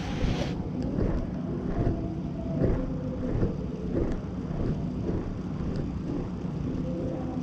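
A cat rubbing and pawing against a GoPro on the floor: fur brushing over the camera and soft bumps against its body, repeating irregularly over a steady low rumble.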